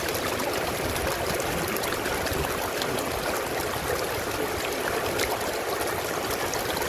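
Shallow floodwater running and trickling steadily over stones and mud.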